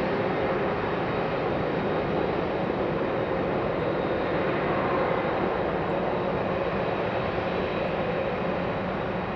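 Boeing 747-400's four turbofan engines running at taxi power as the jumbo jet rolls past close by: a steady jet rush with a faint high whine held throughout.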